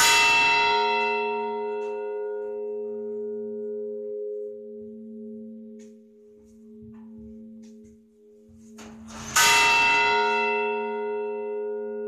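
A large bell struck twice, about nine seconds apart. Each strike gives a bright clang that rings on and fades over several seconds, over a steady low hum that carries on between the strikes.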